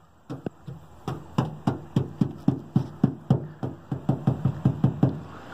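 A fingertip tapping quickly and evenly on a car's painted body panel, a steady run of short sharp knocks at about four a second.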